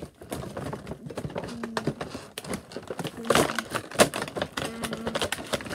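A cardboard toy box being handled and pried open: rustling and scraping of the card with a run of quick taps and knocks, the loudest knocks about three and four seconds in.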